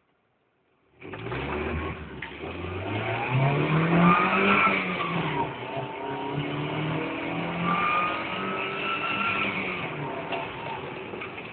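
Mercedes C230 Kompressor's supercharged 2.3-litre four-cylinder accelerating hard through the gears: starting about a second in, the engine note climbs, drops back at a gear change about halfway through, then climbs again, with a rising supercharger whine above it.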